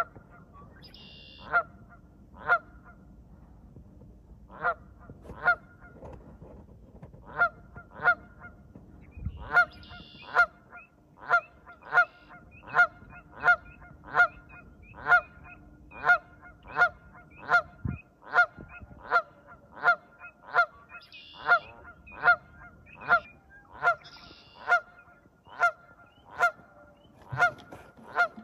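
Canada geese honking: short, repeated calls, a few scattered at first, then a steady run of a little over one honk a second.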